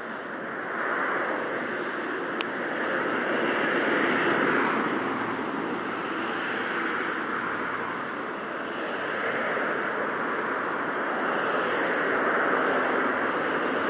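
Outdoor rushing noise that swells and fades every few seconds, with a single sharp click about two and a half seconds in.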